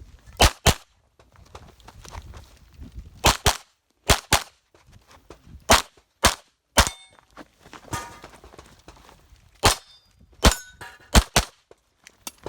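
9mm competition pistol fired in an IPSC stage: about a dozen shots, mostly in quick pairs, with gaps of a second or two between pairs. After some shots there is a short metallic ring.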